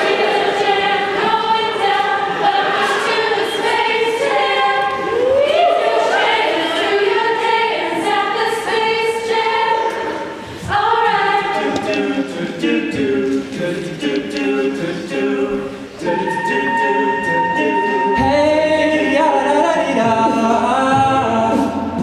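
Mixed a cappella group of men's and women's voices singing a pop arrangement in close harmony over a steady beat. A deep bass line comes in near the end.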